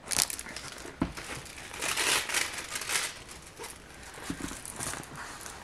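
Packaging crinkling and rustling in irregular bursts as a diamond painting kit's bagged accessories are handled, with one sharp tap about a second in.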